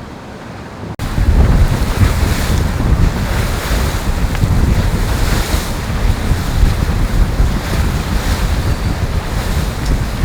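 Wind buffeting the microphone and water rushing along the hull of a racing sailboat under way, cutting in abruptly and much louder about a second in.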